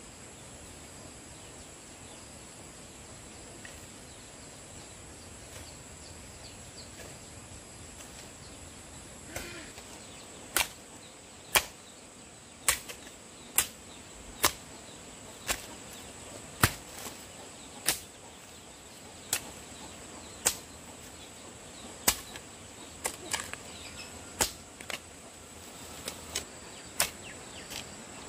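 A series of sharp knocks or strikes, roughly one a second, starting about a third of the way in, over a steady high insect-like whine.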